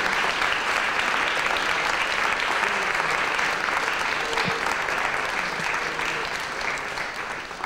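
Audience applauding, a steady clapping that slowly fades near the end.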